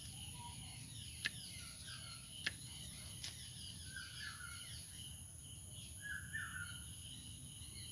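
Pruning shears snipping small branches, three sharp clicks in the first few seconds. Behind them, birds give short falling chirps, with a steady high insect drone.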